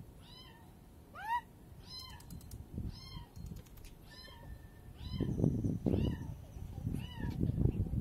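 A cat stuck under a small footbridge meowing over and over: short calls about once a second, with one louder, rising meow about a second in. A low rumbling noise joins in over the second half.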